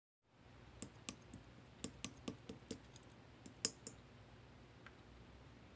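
Clear blue slime being pressed and handled, giving a quick, uneven run of small sharp clicks and pops that thin out after about four seconds.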